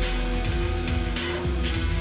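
Film score: background music with sustained held notes over a heavy low pulse and a regular rhythmic beat.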